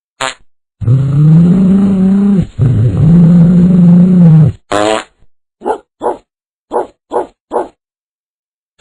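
Cartoon fart sound effect: one long, low, pitched fart in two parts lasting about four seconds, followed by a short blip and then five short quick sounds about half a second apart.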